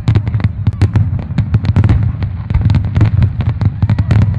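Fireworks display: aerial shells bursting in rapid succession, a dense string of sharp bangs, several a second, over a continuous low rumble.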